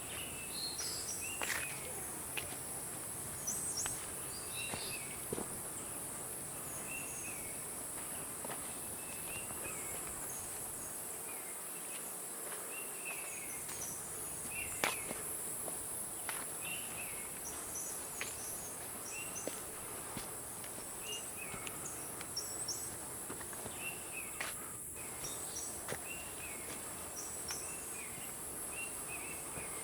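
Tropical forest ambience: a steady high-pitched drone of insects, with short bird chirps repeating every second or two and a few light clicks, likely footsteps.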